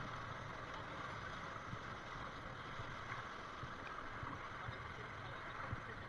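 Steady rush of river whitewater close around a drifting inflatable raft.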